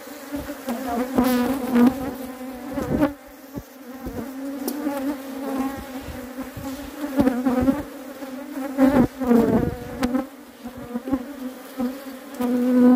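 Honey bees buzzing around an opened hive: a steady hum with single bees swooping close past the microphone, their pitch rising and falling. A few dull knocks sound in between, the clearest about nine seconds in.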